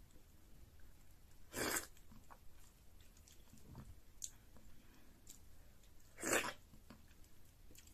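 A person eating fufu and fish with her fingers: faint mouth and finger sounds, broken twice by a short, loud breathy rush, once about a second and a half in and again about six seconds in as the food goes into her mouth.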